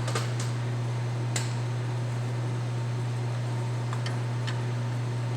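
Steady low hum with a few light metallic clicks and taps: an end mill being fitted into the milling machine's chuck.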